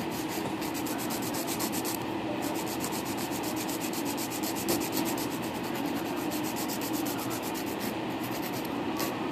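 An acrylic nail being filed: a steady rasping in fast, even strokes, several a second.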